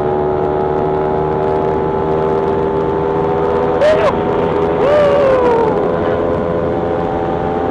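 CFMOTO 450SR motorcycle's parallel-twin engine running at a steady speed while riding, its note holding even with no revving or gear changes.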